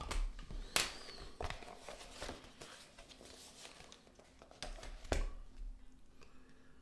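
Handling noises of a cardboard straightedge and a pencil on a sheet of drawing paper: soft rustling and sliding with a few sharp taps, the loudest about a second in and about five seconds in.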